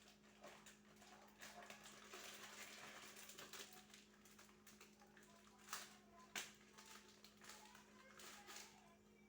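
Near silence: a steady low hum with faint scattered clicks and rustles, two slightly sharper clicks a little past halfway.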